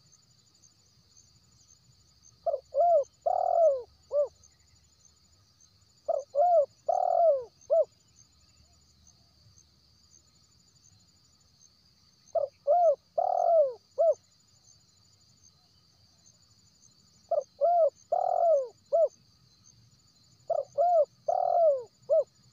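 Spotted dove cooing: five phrases several seconds apart, each of four notes, two short coos, a longer drawn-out coo, then a short closing note.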